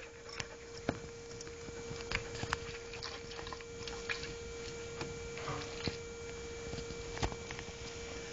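A Samoyed dog and a pet ferret scuffling at cage bars: scattered light clicks and scratches, over a steady hum.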